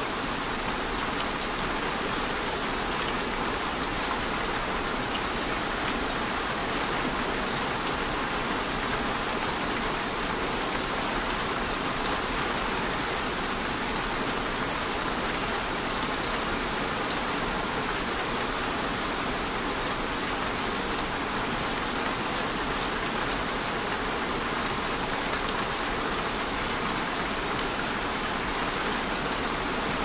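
Steady rain falling, an even hiss of many drops that holds unchanged throughout.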